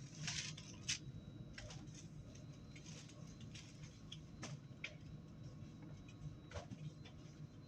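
Faint steady low hum inside an Alstom Citadis 302 tram car, with scattered light clicks and knocks and a thin high whine underneath.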